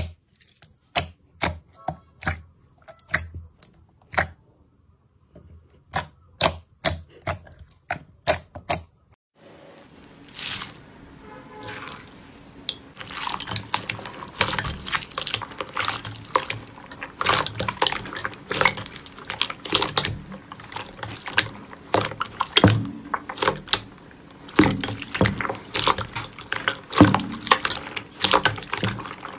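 Hands pressing slime: first a string of sharp, separate pops from air pockets in a glossy gold clear slime, then, after a short pause about nine seconds in, a louder, dense crackling and squishing as a clear blue slime packed with foam beads is squeezed.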